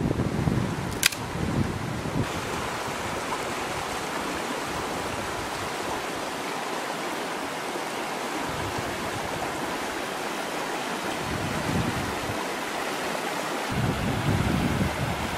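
Shallow river rushing steadily over rocks, a continuous even hiss of white water. Wind buffets the microphone with low rumbles at the start and again near the end, and a single sharp click sounds about a second in.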